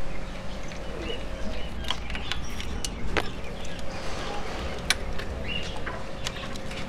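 Scattered clicks and rustles of a motorcycle wiring harness and its plastic connectors being pulled loose from a stripped frame by hand, over a steady faint hum.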